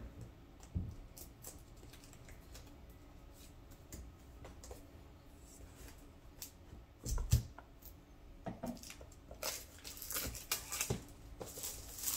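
Retail packaging of a gimbal being handled and opened: scattered light clicks and taps, a soft thump about seven seconds in, then busier rustling and crackling from about nine and a half seconds in.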